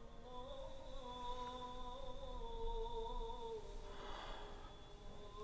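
A single voice humming or singing a slow, wordless melody in long held notes that waver and slide, dipping to a lower note about four seconds in.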